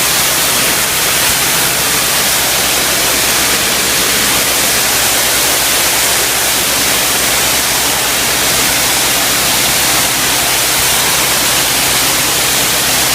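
Pressure washer spraying a steady high-pressure water jet onto freshly poured concrete, washing away the retarded cement paste to expose the aggregate: a loud, even hiss with a low hum underneath.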